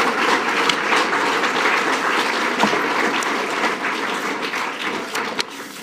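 Audience applauding, the clapping growing fainter and then cutting off suddenly near the end.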